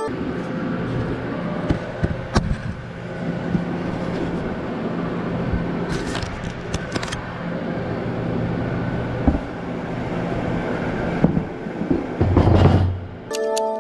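Table-mounted router running steadily and cutting MDF as a subwoofer box side is routed wider, with a few sharp knocks as the box shifts on the table and a heavier thump near the end as the box is lifted.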